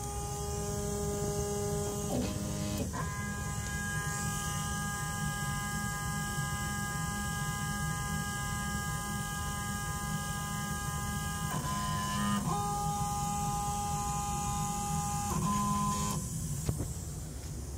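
Stepper motors of a Denford benchtop CNC micromill driving its axes during a homing run. They make a steady electronic whine that jumps to a new pitch several times as the step rate and the moving axis change, over a low hum.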